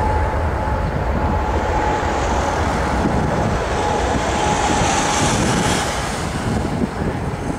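Boeing 767 jet engines at takeoff thrust during the takeoff roll: a steady rumble with a thin, constant whine that fades near the end, and wind buffeting the microphone.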